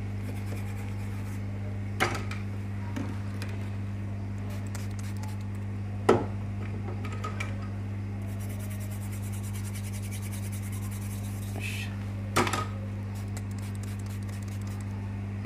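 A brush scrubbing the bare CPU pads of an engine control module's circuit board, with three sharp taps from handling the board and a soft hiss for a few seconds in the middle. A steady low electrical hum sits under it all.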